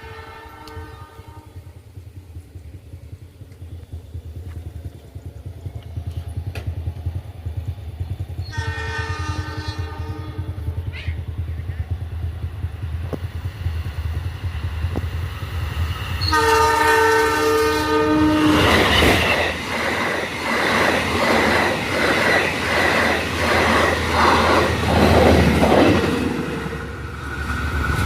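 Argo Wilis express train running in at high speed on a straight, its low rumble growing louder. The locomotive's multi-tone horn sounds at the start, again about 9 seconds in and again about 16 seconds in. The train then rushes past with its wheels clacking rhythmically over the rail joints for about eight seconds.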